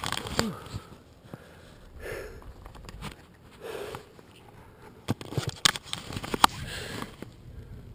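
A person breathing hard close to a GoPro microphone, with breaths every second or two. Between about five and seven seconds in there are several sharp clicks and knocks from the camera being handled.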